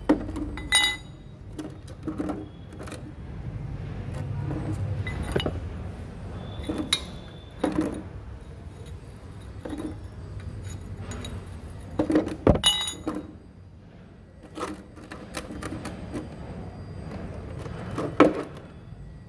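A metal spanner clinking and clicking against the oil drain bolt under a Royal Enfield Standard 350's crankcase as the bolt is worked loose. The clinks are scattered and irregular, the sharpest about a second in, about twelve seconds in and near the end.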